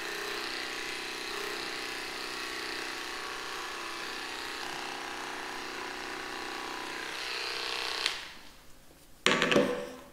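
Electric dog-grooming clippers buzzing steadily while cutting a small dog's coat, switched off about eight seconds in. A short loud noise follows about a second later.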